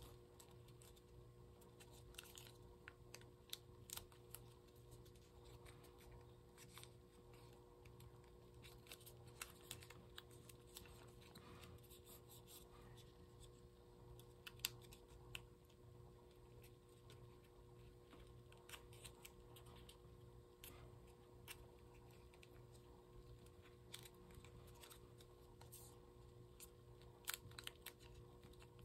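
Faint crackles and light taps of origami paper being folded and creased by hand, coming irregularly, over a faint steady hum.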